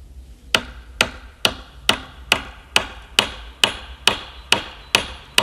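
A hammer driving a nail into the wooden log bench: about a dozen steady strikes, about two a second, starting about half a second in, each ringing briefly.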